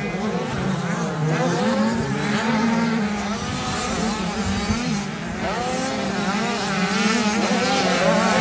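Several motocross bikes running on the track, their engines revving up and down in constantly rising and falling pitches as they accelerate, shift and pass, over a steady low drone.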